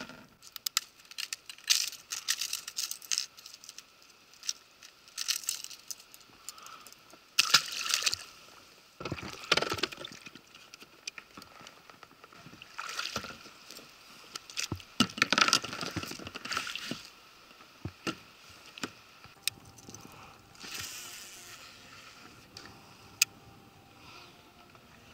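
Handling noise in an inflatable fishing boat while a just-caught pike is unhooked: irregular knocks, clicks and rustling bursts, with some water sloshing.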